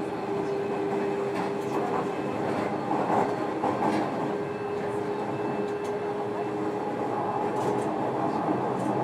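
Running sound inside a JR Kyushu 305 series motor car (MoHa 305-102) at speed: a steady hum of the traction motors over wheel-and-rail rumble, with a few faint clicks from the track.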